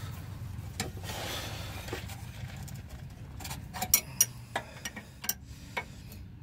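Steel open-end wrenches clinking against the fuel filter fitting and fuel-line nut as they are fitted and positioned: a scatter of light metallic clicks, most of them in the second half, over a low steady hum.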